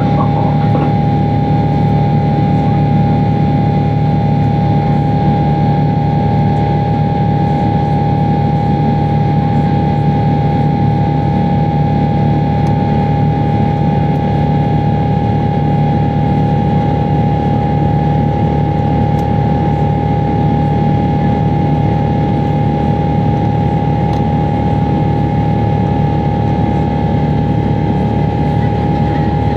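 Steady engine drone of a Boeing 777-300ER's GE90-115B turbofan, heard inside the cabin beside the wing during the climb after takeoff, with one steady high tone over the deep hum.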